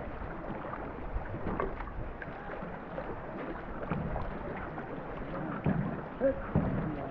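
Racing canoe being paddled: paddle strokes in the water and water running along the hull, with a few louder splashes or knocks near the end.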